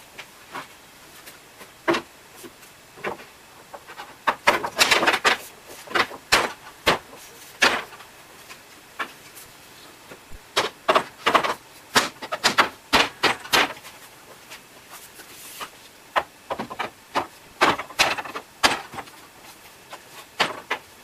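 Stiff 10 mm compact-laminate panels being handled and fitted together: irregular knocks and clacks, many in quick clusters, as the panels are set down and slotted into place on the base plate.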